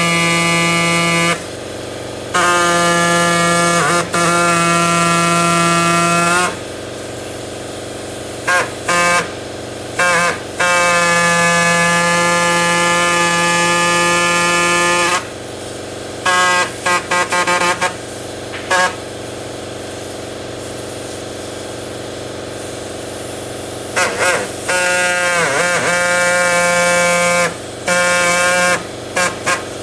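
Electric power tool cutting the rubber lugs off a lawnmower tire, switched on and off: several runs of a few seconds each and a string of short trigger blips, its steady whine dipping in pitch briefly under load near the end.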